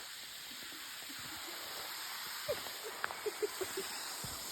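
Steady hiss of falling water, rain or the falls, with a string of faint short chirp-like sounds about halfway through.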